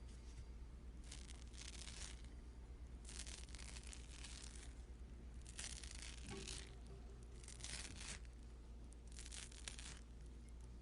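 Fruit peel tearing away in about six separate strokes, each under a second, over a faint steady low hum.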